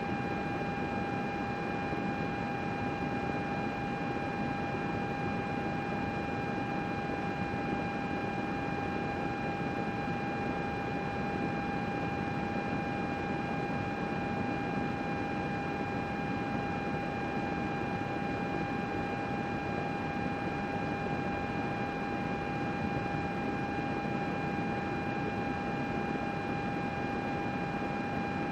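Computer running: a steady fan whir with a constant high-pitched whine.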